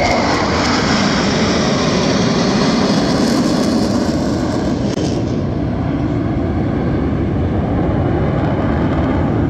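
Jet roar from a formation of eight T-50B jets, each with a single turbofan engine, flying past. A loud, steady rumble whose hissing top end dies away about halfway through as the formation moves off.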